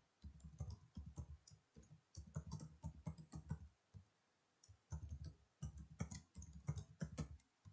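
Computer keyboard being typed on, faint quick runs of keystrokes in three spells with short pauses between them.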